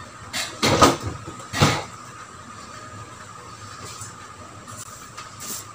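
Household cleaning noises: three short, sharp noise bursts in the first two seconds and a smaller one near the end, over a faint steady hum.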